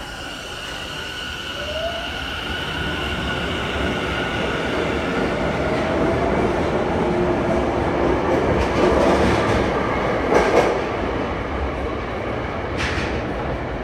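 Tobu 50050 series electric train pulling away from the platform: its motor whine climbs in pitch as it gathers speed over a growing rumble of wheels. Sharp clacks from the wheels come about ten and thirteen seconds in.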